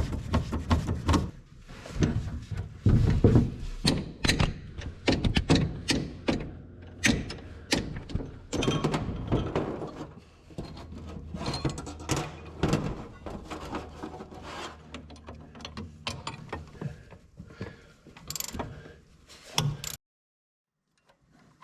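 Irregular metallic clicks, clanks and ratcheting of hand tools and loose metal parts being worked on a vintage Bugatti clutch, with a low hum beneath for a while; it stops abruptly near the end.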